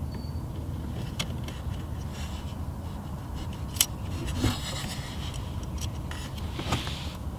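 Small metal clicks and scrapes of a cotter pin being worked into the linkage of a CAE Ultra Shifter, with one sharper click near the middle, over a steady low rumble.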